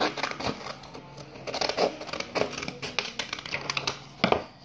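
Scissors snipping through a sheet of paper, a quick run of repeated cuts, with the paper rustling as it is handled.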